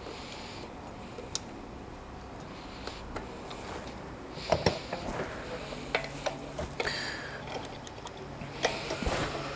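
Refuelling handling noises: small clicks as the fuel cap of a KTM Duke 390 is unlocked and opened, then a cluster of clunks about halfway through as the fuel nozzle is lifted from the pump. Scattered clicks follow, and about seven seconds in the pump starts a low steady hum.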